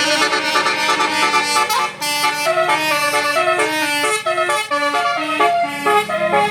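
Bus 'telolet basuri' multi-tone musical horn playing a tune. A held note slides slowly down over the first couple of seconds, then a quick melody of short stepping notes follows over a steady low tone.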